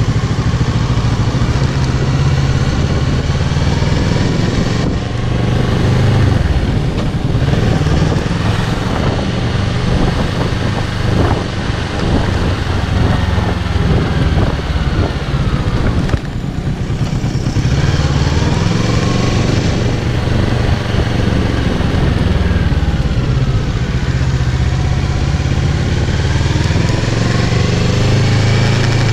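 2017 Kawasaki Z650's parallel-twin engine through its stock exhaust, heard from on the bike while riding. The revs rise and fall repeatedly as it accelerates and shifts, with the throttle briefly closed about 5 seconds in and again about 16 seconds in.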